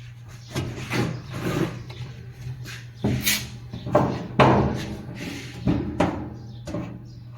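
Irregular knocks, clatter and scraping as a Maytag dryer's metal cabinet and parts are handled and worked on, with the loudest knocks a few seconds in. A steady low hum runs underneath.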